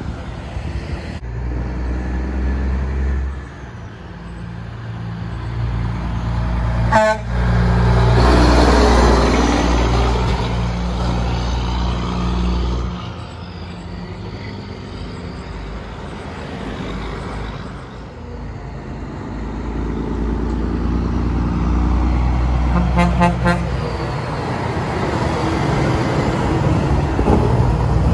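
Diesel semi-trucks pulling tank trailers drive past one after another, each engine growing louder as it nears and fading as it goes. A short horn toot sounds about a quarter of the way through, and a quick run of horn blasts comes later.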